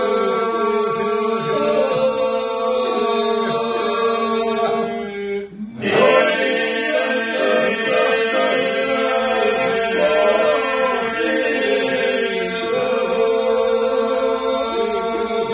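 Group of men singing a Lab polyphonic folk song: a steady held drone under wavering lead voices, with a brief break about five and a half seconds in before the singing resumes.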